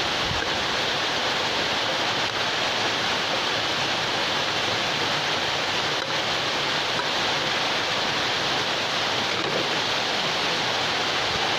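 Rain falling steadily, a constant even hiss.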